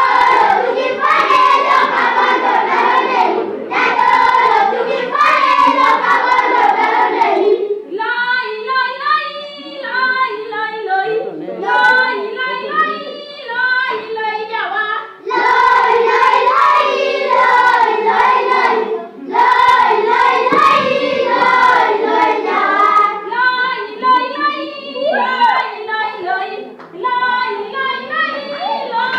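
Children's choir singing together, with hand clapping in the louder passages.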